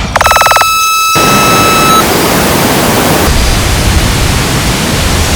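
KORG iMS-20 synthesizer sound effect: a brief buzzy tone and a steady high tone that lasts under two seconds, overtaken by a loud hiss of synthesized noise. About three seconds in, the hiss loses its top end and turns duller.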